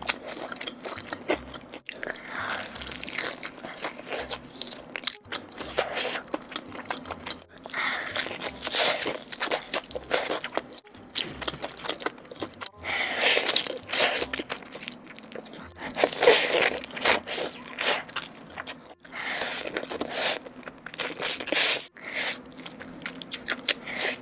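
Crispy fried chicken coating crunching under repeated bites, with chewing between the crunches.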